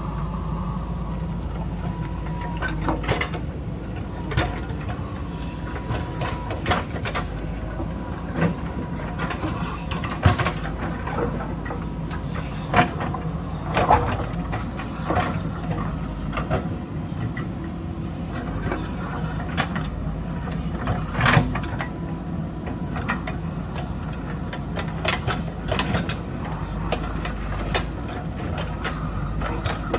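Diesel engine of an earthmoving machine running steadily under load, with irregular knocks and clatters of the bucket working rock and soil; the loudest knocks come about ten, thirteen, fourteen and twenty-one seconds in.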